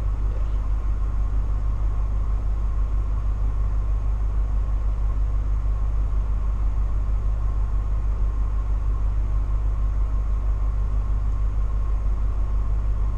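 Coach bus diesel engine idling, heard from the driver's seat: a steady low rumble with a faint steady whine above it.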